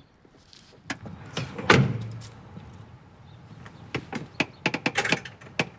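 A van's driver door is slammed shut about two seconds in, then a quick run of sharp knocks on a house's front door near the end.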